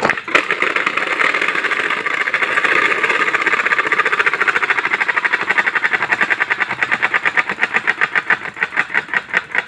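Bicycle spoke exhaust noisemaker: its flap is struck by the spokes of a spinning wheel, giving a loud, rapid motorbike-like clatter. The clatter slows into separate clicks over the last few seconds as the wheel coasts down.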